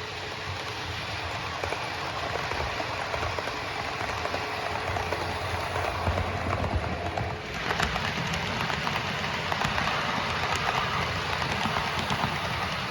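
Model train running on the layout track: a steady rumble with frequent small clicks from the wheels and motor, with a brief dip about seven seconds in.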